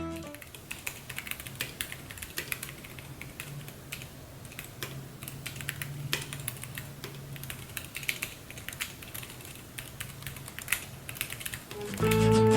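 Typing on an Akko 3087 Sakura Jelly tenkeyless mechanical keyboard with Gateron Yellow switches and PBT keycaps: a fast, uneven run of keystroke clacks. Guitar music comes back in near the end.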